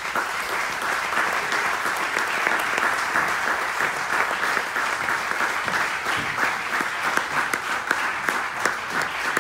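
Audience applauding steadily in an auditorium, a dense patter of many hands clapping that begins suddenly at the end of a talk.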